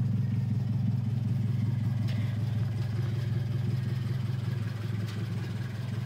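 2016 Scion FR-S's 2.0-litre flat-four boxer engine idling steadily through a SuperTrapp exhaust, a low even drone.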